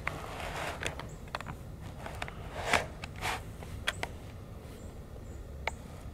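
Handling noises from an air rifle between shots: a few sharp clicks and brief rustling scuffs, the loudest scuff near the middle.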